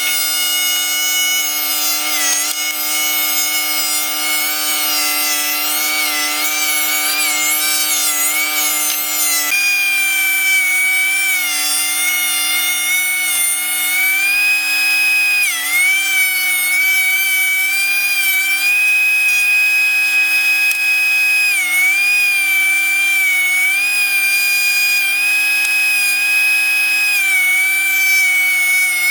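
DeWalt 13-inch thickness planer running loud and steady while planing pine boards, its high whine dipping briefly in pitch several times as the cutterhead takes the load of a board.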